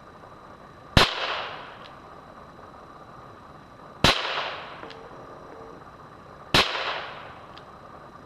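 Three shots from a J.C. Higgins Ranger .22 revolver, about three seconds and then two and a half seconds apart, each a sharp crack with a short echoing tail.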